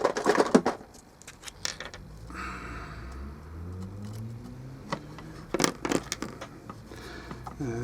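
Clicks, rattles and scraping of small parts being handled as hot-melt glue is picked away from the wires on a speaker's circuit board. There is a burst of clicking at the start, a short scrape a couple of seconds in, and two sharp clicks near the six-second mark.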